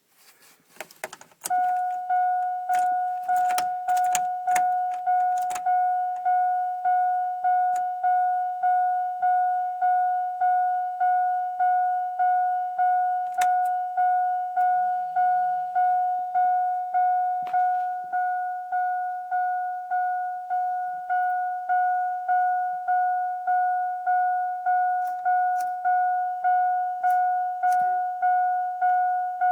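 Chevrolet Silverado's dashboard warning chime dinging steadily at one pitch, a little under twice a second, starting about a second and a half in, with scattered clicks and rattles, as of keys, alongside. No engine cranking or running is heard.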